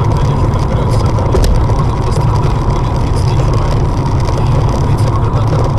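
Steady low rumble of a car's engine and road noise heard from inside the cabin, with a faint steady whine over it.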